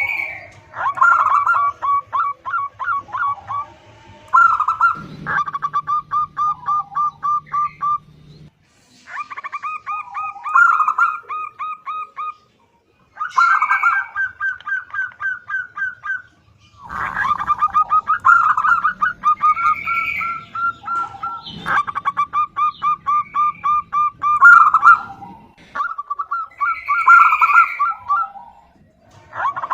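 Female zebra dove (perkutut) calling: repeated phrases of quick, evenly pulsed cooing notes, each phrase a few seconds long with short pauses between.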